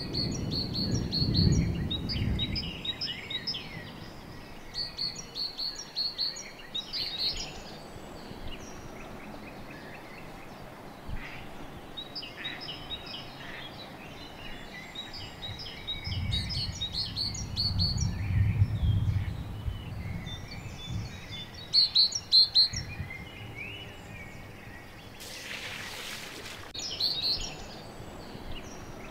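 Songbirds singing, with many short high chirps and trills repeating throughout. A low rumble sounds near the start and again midway, and a brief hiss near the end.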